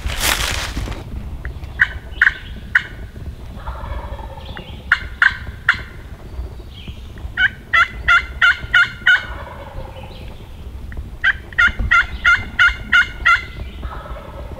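Wild turkey calling: four runs of short, sharp yelps, the first two of three notes each and the last two of about eight quick notes. A brief rustle comes at the very start.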